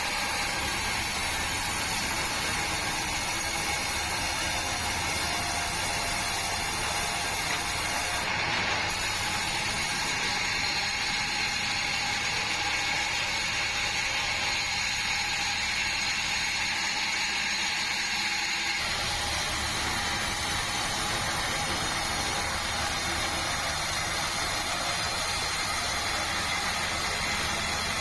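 Band sawmill running steadily while sawing a large meranti log, a continuous mechanical drone with a steady high whine. About two-thirds of the way through, the sound shifts.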